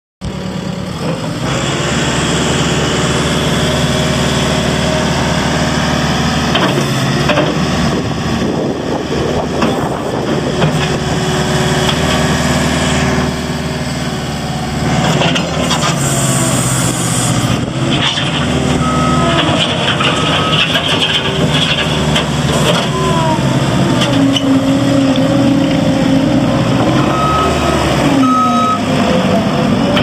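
JCB 260T compact track loader's diesel engine running as the machine drives about on its tracks, the engine speed rising and falling, with knocks and rattles from the machine.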